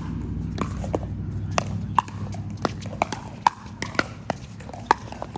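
Pickleball paddles striking plastic balls: an irregular series of sharp, hollow pops, about two a second.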